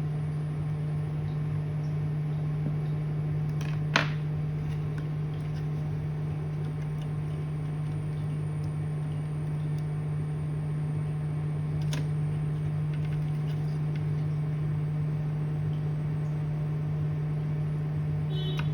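Steady low electrical hum of workbench equipment, with a sharp click about four seconds in and a fainter click near twelve seconds.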